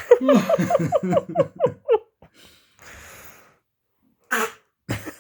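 A dog's fake cough: a quick run of about eight short honking hacks in two seconds, each falling in pitch, then a few shorter breathy huffs. The owner takes it for a put-on cough, not a real one.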